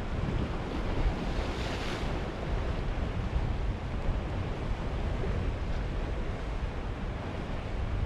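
Sea waves washing and breaking against rocky shoreline, with wind buffeting the microphone as a steady low rumble. One wave breaks with a brighter hiss about two seconds in.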